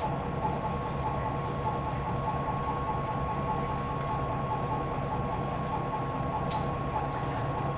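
High-pressure pump of a nanofiltration rig running steadily under load: a continuous hum with a held high whine and a fast, even pulsing.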